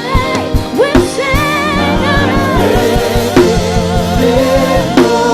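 Live gospel worship song: singers holding long notes with vibrato over a band with keyboard and drum kit.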